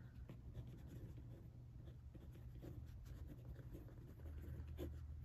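Faint scratching of a pen writing on a sheet of paper, in short, irregular strokes.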